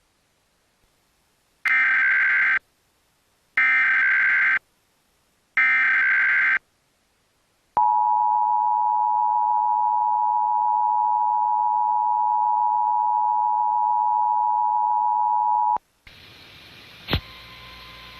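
Emergency Alert System tones: three short stretches of warbling digital header data, each about a second long and two seconds apart, then the EAS two-tone attention signal, a steady dual tone held for about eight seconds that marks the start of an alert.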